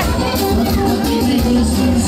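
Loud dance music with a heavy, continuous bass beat under a melody line.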